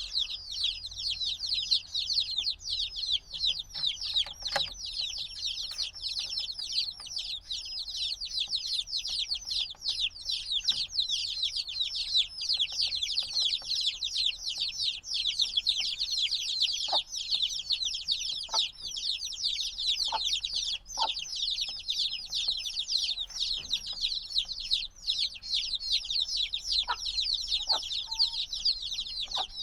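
A brood of chicks a few days old peeping loudly and continuously, many high, short, downward-sliding chirps overlapping without pause, the chicks calling for warmth from the hen. A few faint clicks or taps are heard here and there.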